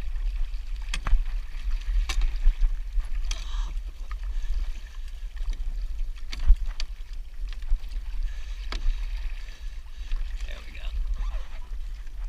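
Water rushing and splashing along the hulls of a Hobie 14 catamaran sailing upwind, with wind buffeting the microphone as a steady low rumble. Several sharp knocks come through, the loudest about two-thirds of the way in.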